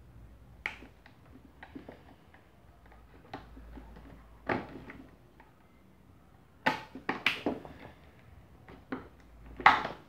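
Small flathead screwdriver prying at the plastic snap catches of an Arno Fan 12 desk fan's rear motor cover: scattered sharp clicks and knocks of metal on hard plastic as the catches give, several in quick succession a little past the middle and the loudest near the end.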